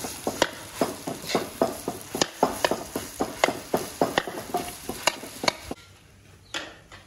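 A metal wok spatula scraping and turning fried rice in a metal wok, with quick repeated strokes and the rice sizzling. The stirring stops about six seconds in.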